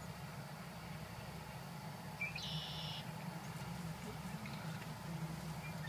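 A bird gives a single buzzy, high call about half a second long, some two and a half seconds in, over a steady low hum.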